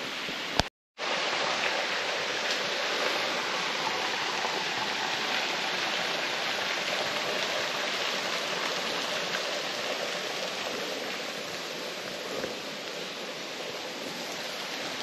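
Water of a small stream running steadily, an even rush without change; the sound drops out completely for a moment about a second in.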